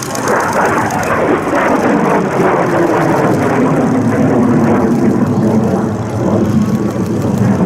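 Jet noise from a Kawasaki T-4 jet trainer's twin turbofans: a loud rush that swells suddenly and then slides steadily lower in pitch as the jet passes and draws away.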